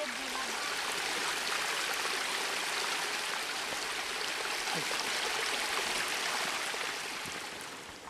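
Mountain stream rushing over rocks: a steady wash of water that fades away near the end.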